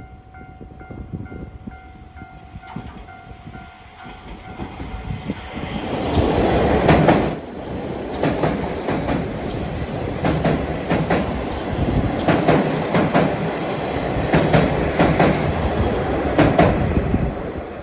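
A train passing close by, wheels clicking in rapid runs over the rail joints. It builds up about five seconds in, stays loud, and falls away near the end.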